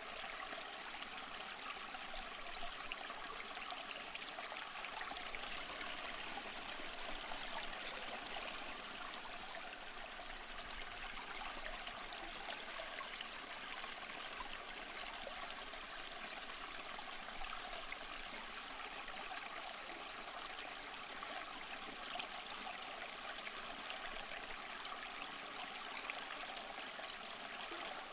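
Stream water flowing and trickling steadily, an even, unbroken rush with small splashes flickering through it.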